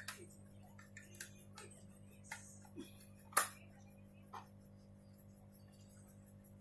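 Scattered small clicks and taps of a screwdriver and screws being worked while a 2.5-inch SSD is screwed into a laptop drive bracket. The loudest is a sharp tap about three and a half seconds in, over a steady low hum.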